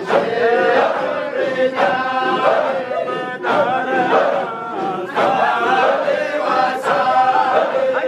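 A large group of men chanting dhikr together in unison, in repeated sung phrases with short breaks between them.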